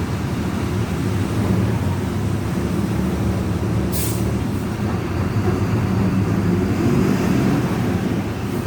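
Volkswagen 17.230 EOD city bus with an MWM 6.12 TCE turbodiesel, running with its differential growling in a steady low drone. A short hiss of compressed air about four seconds in.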